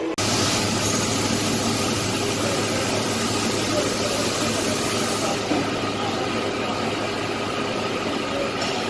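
Intensive rotor foundry sand mixer running: a steady machine noise with a low hum under a loud hiss, the hiss easing about five and a half seconds in.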